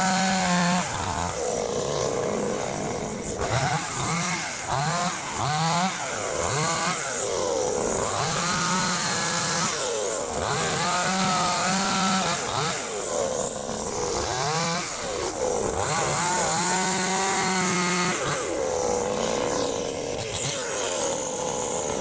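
Chainsaw running through a cut, its engine revving up and dropping back over and over.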